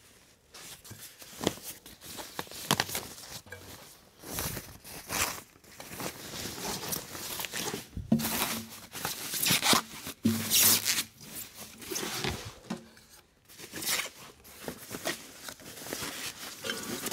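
Plastic protective bag rustling and crinkling in irregular bursts as it is handled and pulled off a heavy inverter being lifted from its packing.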